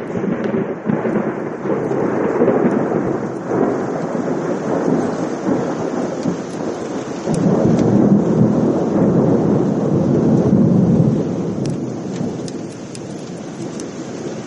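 Long rolling thunder that swells about two seconds in and again from about eight to eleven seconds, then dies away toward the end.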